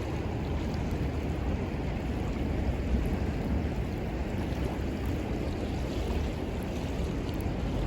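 Steady rushing of river water mixed with a low rumble of wind on the microphone.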